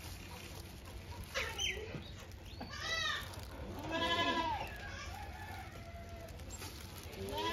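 Piglet squealing while it is restrained: about four short cries that arch up and down in pitch, the longest about four seconds in.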